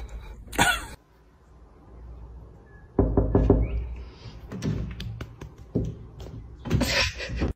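A run of taps and knocks on a window pane, several in quick succession, with the loudest near the end.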